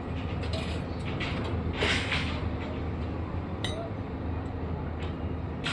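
Excavator at work: a steady engine drone with clinks and scrapes of the bucket in soil. The loudest is a longer scrape about two seconds in.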